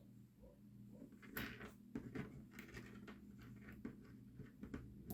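Faint, irregular clicks and light taps of small hard RC truck parts being handled and fitted, starting about a second and a half in, over a steady low hum.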